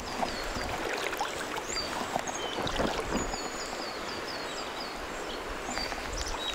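River water running over a shallow riffle, a steady rush, with a bird repeating short, high, falling chirps over it.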